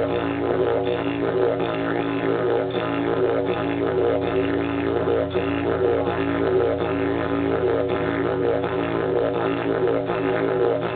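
Didgeridoo playing a continuous low drone, its upper overtones pulsing in a steady rhythm a few times a second.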